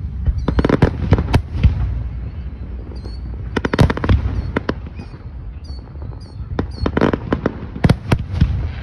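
Aerial fireworks shells bursting: quick clusters of sharp cracks and bangs about a second in, around four seconds, and again from about six and a half to eight seconds, over a steady low rumble.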